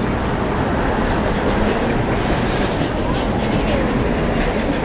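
Steady rumble of busy city street traffic, with cars and a box truck passing.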